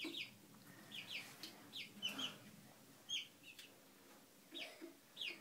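Young chickens peeping: about a dozen short, high, downward-sliding cheeps at an uneven pace, faint.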